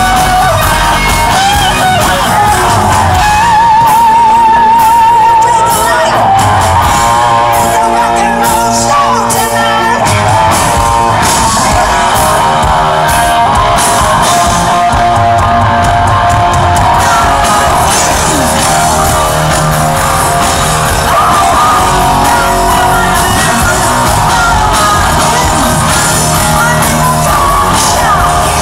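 Hard rock band playing live through a loud PA: distorted electric guitars, bass and drums, with a male singer's vocals and shouts.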